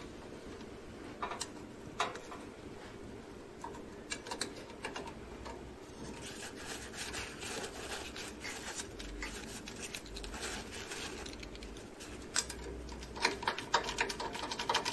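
Paper towel rubbing and crinkling against the fuser thermistors, with light clicks and scrapes of a screwdriver on the printer's metal parts, as toner grime is wiped off. Scattered clicks at first, steadier rubbing through the middle, and a quick run of clicks near the end.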